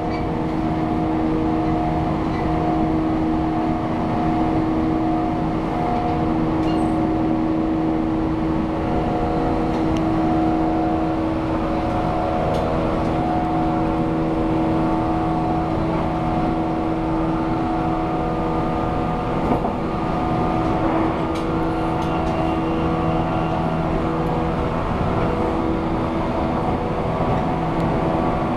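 183/189-series DC electric multiple unit running at speed, heard from the vestibule deck: its MT54 traction motors whining at a few steady pitches over the rumble of wheels on rail, with a few faint clicks.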